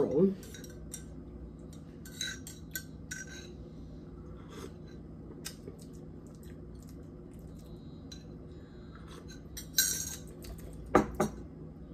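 A metal spoon stirring coffee in a ceramic mug, clinking against its sides in scattered light taps. Near the end come a louder clatter and a knock.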